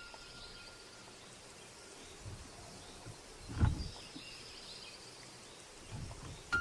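Underwater ambient noise heard through a diving camera's housing: a steady soft hiss, with one dull low thump about halfway through.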